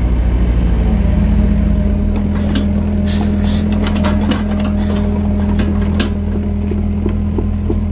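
Heavy diesel engines of an excavator and a loaded truck running hard as the excavator drags the truck uphill by a chain hooked to its bucket. The drone steps up to a higher steady pitch about one to two seconds in, with scattered clicks and two short hisses, about three and five seconds in.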